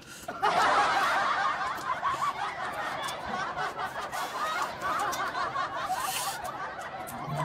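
Canned laughter: many voices snickering together, starting about half a second in and slowly tailing off.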